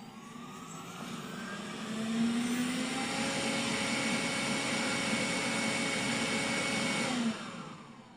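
Roborock S50 robot vacuum's suction fan spinning up with a rising whine, running steadily for several seconds, then shutting off about seven seconds in and winding down with a falling whine.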